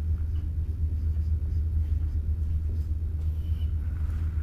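A steady low rumble in the background, with faint marker strokes on a whiteboard.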